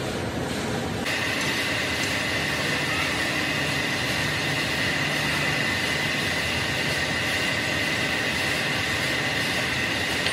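Large engine lathe running while a tailstock drill cuts a centre hole into the end face of a big iron shaft: a steady mechanical drone, with a steady high-pitched whine from about a second in.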